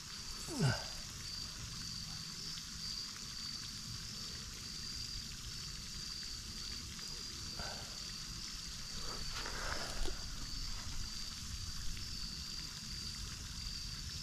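Quiet outdoor background: a steady, high-pitched insect buzz that pulses on and off, over a low rumble, with a few faint short sounds along the way.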